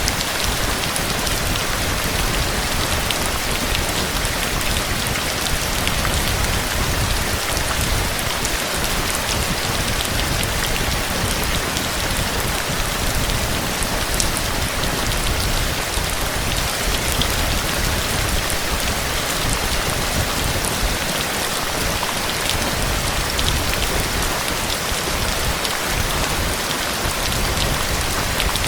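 Heavy rain falling steadily, a dense even hiss with many individual drops pattering on surfaces and a low rumble underneath.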